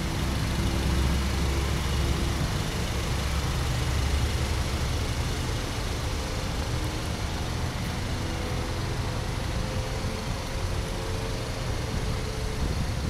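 A car engine idling steadily, a low even hum with a faint changing drone over it.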